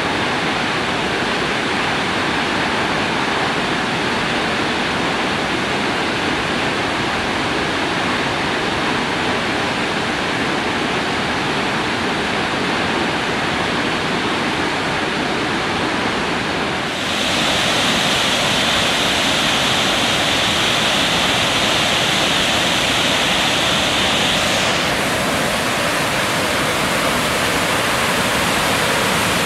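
Waterfall rushing steadily, falling white water over rock. A little past halfway it gets louder and more hissing.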